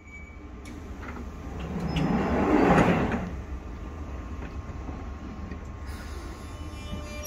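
Jubilee line 1996-stock Underground train's doors sliding shut at the platform. A swelling rush of sound peaks a little before three seconds in, then gives way to the steady hum of the standing train.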